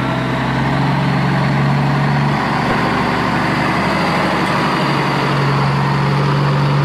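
Steady truck engine sound, a loud even rumble with a low hum, running without change.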